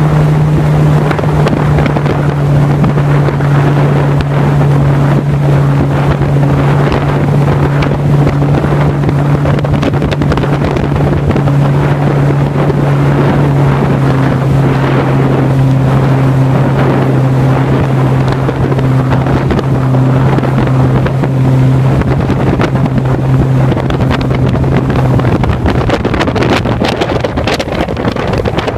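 Boat motor running steadily with an even hum, under heavy wind buffeting on the microphone and rushing water; the motor's hum stops near the end while the wind noise goes on.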